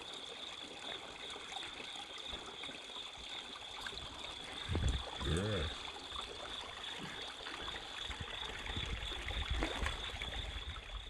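Steady trickling of water. A brief voice-like sound comes about five seconds in.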